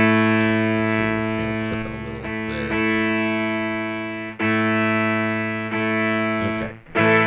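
Telecaster played through a Boss SY-200 synthesizer pedal on a lead synth tone: long sustained notes that slowly fade, with a new note struck about four seconds in and another near the end.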